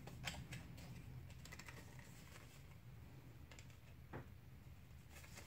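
Faint, scattered light ticks and rustles of heavy card stock being handled and folded, with a wooden skewer through it, over a low steady hum.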